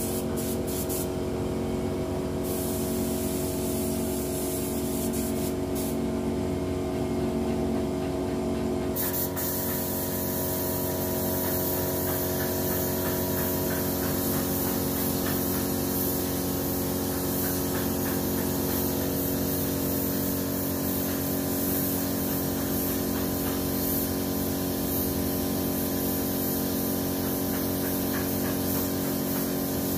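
Compressed-air paint spray gun hissing steadily as it sprays a wooden table, the hiss stronger from about nine seconds in, over the steady hum of a small air compressor running.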